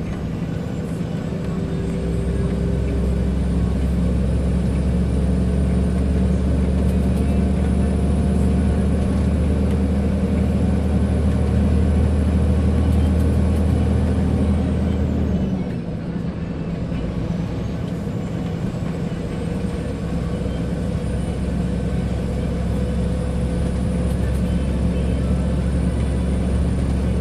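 Scania 124L 420's inline-six diesel pulling under way, with a thin high whistle rising alongside it. About halfway through the engine note and whistle drop off together for a moment, as when power is lifted, then build up again.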